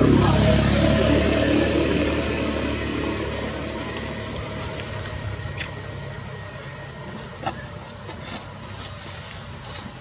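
A motor vehicle engine going past with a low hum, loudest at the start and fading away over the next several seconds. A few faint clicks follow near the end.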